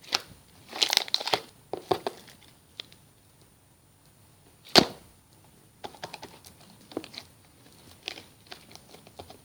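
Rustling and crinkling handling noises with scattered clicks. A single sharp click about five seconds in is the loudest sound, and there is a quiet gap just before it.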